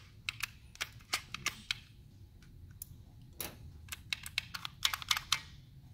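Irregular sharp plastic clicks and clatter from a Volvo I-Shift gear selector's housing and lever as they are handled and worked apart by hand. The clicks come in two bursts, one in the first two seconds and a busier one from about four seconds in.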